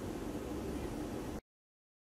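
Steady room background noise with a low hum, which cuts off suddenly to dead silence about a second and a half in.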